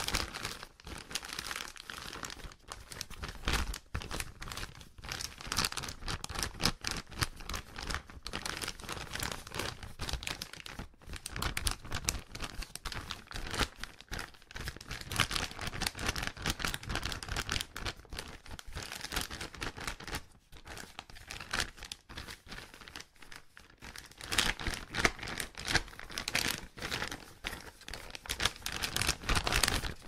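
Plastic bag crinkling and crumpling in a continuous run of irregular crackles. It eases off briefly about two-thirds of the way through and picks up again near the end.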